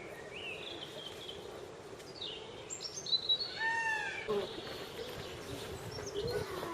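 Several birds chirping and whistling in short calls that glide up and down, busiest in the middle, over faint steady background noise.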